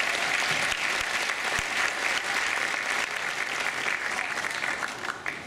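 Audience applauding, a dense patter of many hands clapping that thins and dies away near the end.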